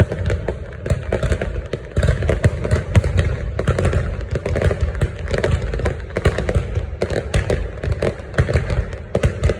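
Many fireworks going off at once: a dense, continuous run of overlapping bangs and crackles with no pause.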